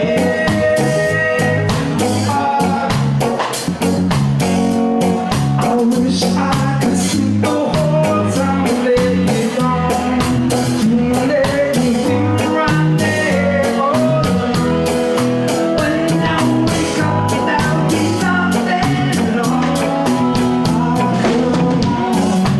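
Live rock band playing a reggae-style number: electric guitar over bass and drums, with a steady beat.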